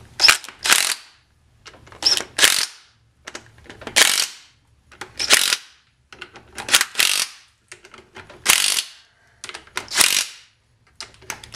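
Cordless impact driver running down the rear cover bolts on a differential case: short rattling bursts, about one every second and a half, as it moves from bolt to bolt.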